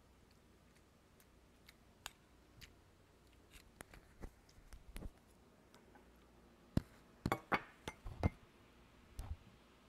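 Scattered light clicks and knocks of tableware and the handheld phone being moved about on a table, a few clinks at first, then a busier run of louder knocks about seven seconds in.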